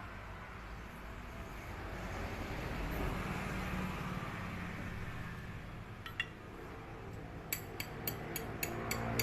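Small metal clinks of tools and parts being handled, with a run of sharp clicks, about three a second, near the end, over a steady low hum.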